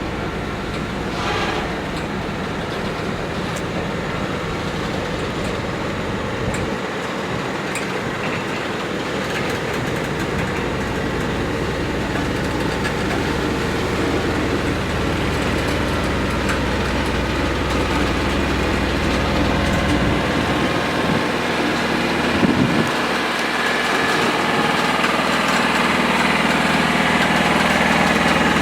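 Diesel engine of an S200-class locomotive running steadily as it creeps along slowly with a train, gradually growing louder.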